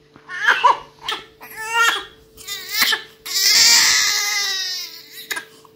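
Newborn baby crying while having its face massaged: a few short cries, then one long cry a little past halfway.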